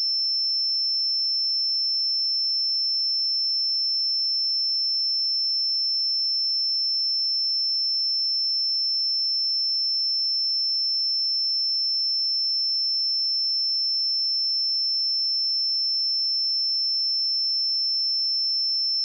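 A steady, unbroken 5332 Hz pure sine-wave test tone: a single high-pitched note held at constant loudness.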